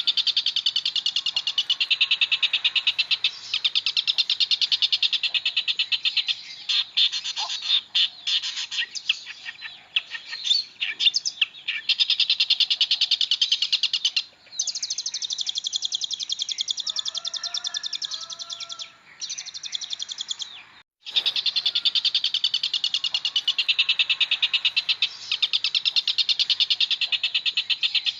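Long-tailed shrike singing a fast, high-pitched chattering song in long runs of rapid notes, with short breaks and a clear pause about 21 seconds in. Fainter, lower whistled notes show under it around the middle.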